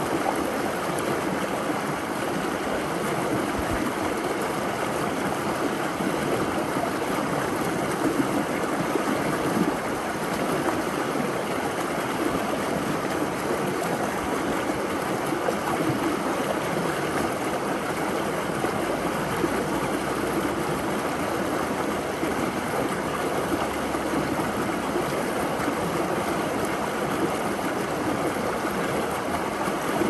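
Mountain stream running over a small rocky cascade into a shallow pool: a steady, even rush and burble of water.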